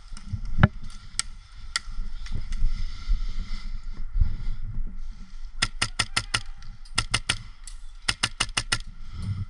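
Airsoft rifles firing: a few single sharp cracks in the first two seconds, then quick strings of four to six shots around five to six seconds in, seven seconds in and eight seconds in, over a low rumble.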